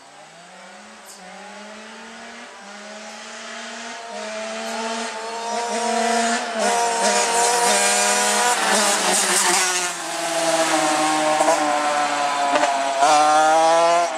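A Kawasaki KX65 and a Honda 85 two-stroke dirt bike racing at full throttle, two engines climbing in pitch through several gear changes as they draw closer and grow louder. They drop in pitch as they go by, about two-thirds of the way in, and rev up again near the end.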